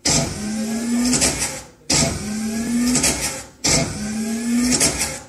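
A recorded, machine-like sound effect played on a loop for a stage dance. The same clip, about a second and a half long, restarts abruptly four times, roughly every 1.8 seconds, each time with a low hum that rises slightly.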